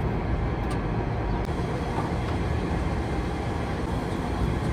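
A steady low rumble of outdoor background noise with two faint ticks early on.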